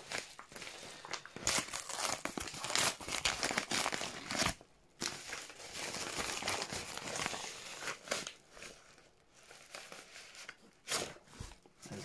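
Paper padded mailer crinkling and rustling as it is handled, with a few sharper crackles near the end.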